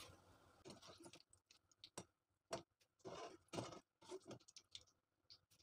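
Faint, scattered taps and scrapes of a metal slotted spoon against a metal kadai as fried green chillies and curry leaves are lifted out of the oil.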